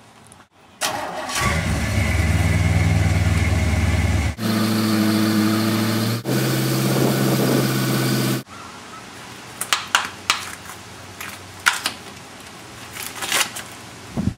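An engine starts and runs loudly at a steady pitch, in three stretches that cut abruptly from one to the next, each at a different pitch. After it stops suddenly, a few quieter knocks and clicks follow.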